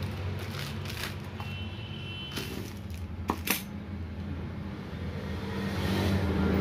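Metal clutch plates clinking against each other as a stack of friction and steel plates is handled and set down on a plastic sheet, with two sharp clinks a little after three seconds in. A steady low hum runs underneath.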